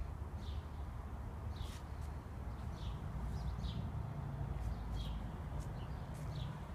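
Outdoor birds chirping: a scattered series of short, high chirps, each dropping slightly in pitch, over a steady low rumble.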